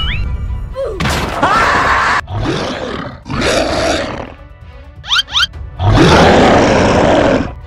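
Monster roar sound effects, four in a row, the last the longest and loudest, given to a giant crab, with a few quick rising whistle-like sounds about five seconds in, over background music.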